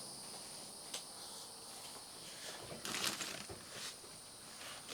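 Faint rustling and handling of boxes and parts, with a short clatter about three seconds in, over a steady high-pitched hum.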